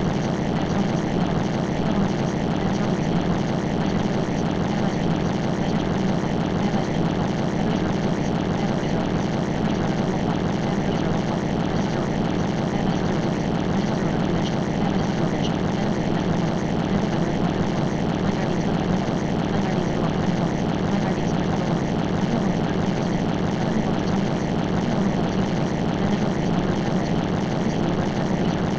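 A steady, unchanging droning noise with no breaks, heaviest in the low range: the masking sound track of a subliminal recording.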